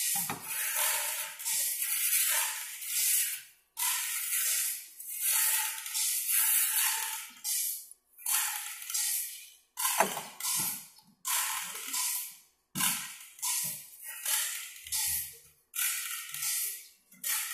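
Band-saw blade rolling (straightening) machine working a long steel sawmill blade between its rollers, giving repeated hissing, scraping bursts about once a second with short gaps between them.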